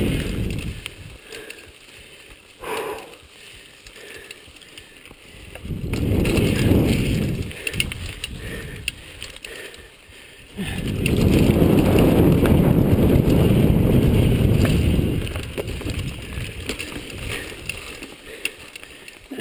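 Chumba VF2 mountain bike ridden fast on a dirt singletrack: the chain and drivetrain rattle and click over the bumps as the tyres run on the trail. A heavy low rumble of wind and trail noise swells twice, around six seconds in and again from about ten to fifteen seconds.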